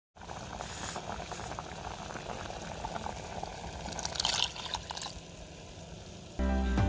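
Thick mutton curry bubbling and simmering in an open pressure cooker, a steady crackle of small popping bubbles with a brief louder hiss a little past the middle. Background music starts suddenly near the end.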